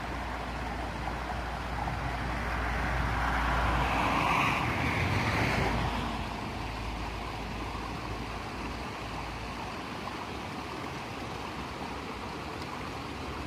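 Wind rumbling on the microphone over the steady rush of water running into a fish pond, with a rushing swell that rises and fades a few seconds in.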